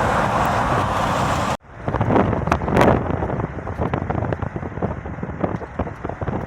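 Car in motion: steady road and wind noise with wind buffeting the microphone. It cuts off abruptly about a second and a half in, then goes on as a quieter rumble with scattered knocks.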